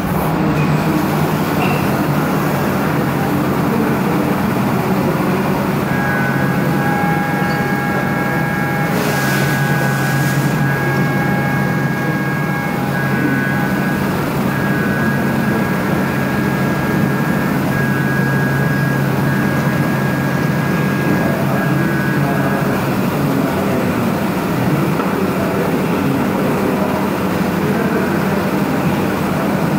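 CNC machining centre roughing aluminium with a 16 mm four-flute carbide end mill at 12,000 rpm, running steadily with flood coolant spraying. A high whine from the cutter comes and goes from about six seconds in until about twenty-three seconds.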